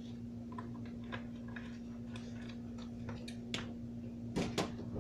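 Light, irregular clicks and taps of kitchen utensils against cookware, with two louder knocks near the end, over a steady low hum.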